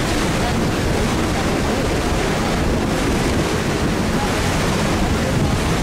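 Steady rush of wind on the microphone and water along the hull of a moving lake boat, with a low rumble underneath.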